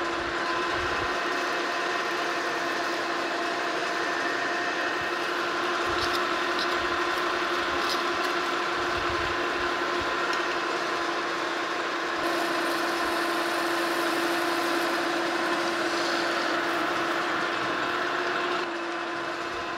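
Metal lathe taking a heavy roughing cut about 80 thousandths deep on a steel shaft under power feed: the steady whine of the lathe's gearing with the hiss of the tool cutting. The sound eases slightly near the end.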